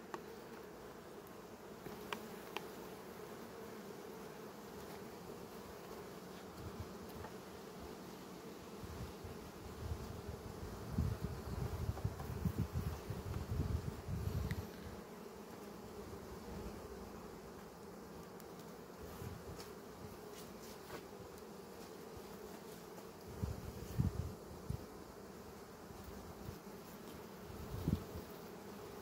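Honeybee colony humming steadily from an open hive, with a few low bumps and rumbles and a couple of sharp clicks as frames are handled.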